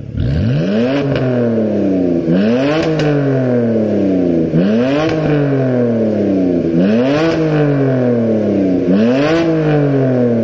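BMW F10 523i's naturally aspirated straight-six revved through an aftermarket X-pipe exhaust with dual vacuum-valve mufflers and quad tips, valves open. Five throttle blips come about two seconds apart, each a quick double rise in pitch, then a slower fall back toward idle.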